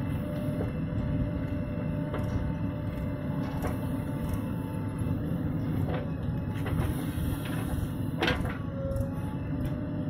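Diesel engines running: a JCB 3DX backhoe loader digging and swinging its arm, and a tractor idling close by. Several metal knocks and clunks from the working machinery sound over the steady engine noise, the loudest about eight seconds in.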